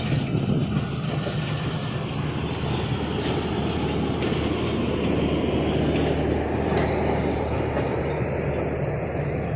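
Subak Raftar passenger coaches and power vans rolling past as the train departs: a steady rumble of wheels on the rails over a low, even hum, swelling a little about halfway through as the power vans go by.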